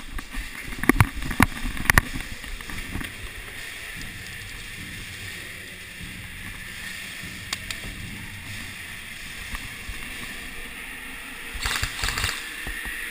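Several loud irregular knocks of footsteps and gear while running on concrete in the first two seconds, then a steady hiss. About twelve seconds in, a quick string of clicks as an airsoft electric rifle fires a short burst.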